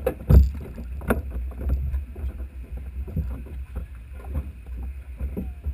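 Water slapping and knocking against the wooden hull of a moored racing boat as it rocks, heard through the bow-mounted camera, with irregular knocks over a steady low rumble.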